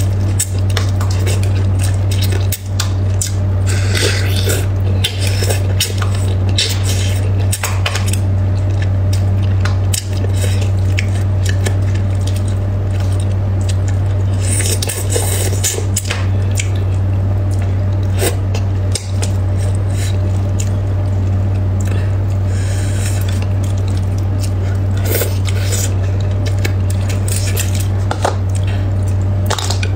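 Close-miked eating of spicy braised fish: chewing and wet sucking, chopsticks clicking against the plate and plastic bowl, and several short slurps. Under it all runs a loud steady low hum.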